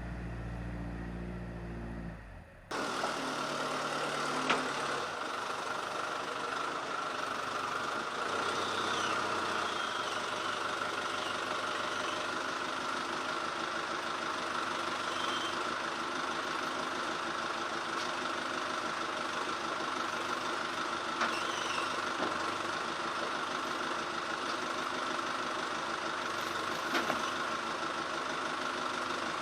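Portable band sawmill's engine running, a deep low drone that changes abruptly about two and a half seconds in to a steady, higher machine noise with a constant whine and a few light clicks.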